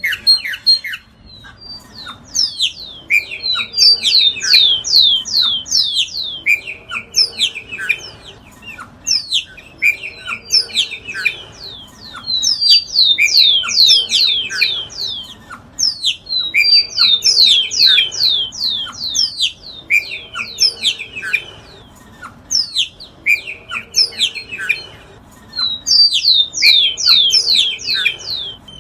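Giant cowbird (iraúna-grande) singing. It repeats the same phrase about every three seconds, a quick run of high, downward-sliding notes over a buzzy lower note.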